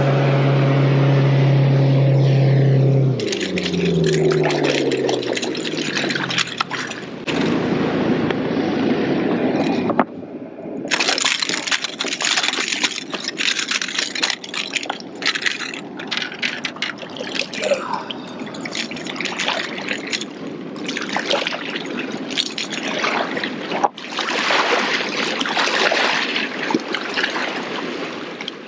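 A motorboat's engine hums steadily, then drops in pitch and fades as it passes. After that, water splashes and laps among shoreline rocks, with irregular clattering and clicking from handling close by.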